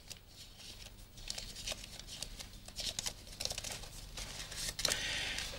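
Faint, irregular crinkling and rustling of a small packet being handled and opened by hand, a little louder in the second half.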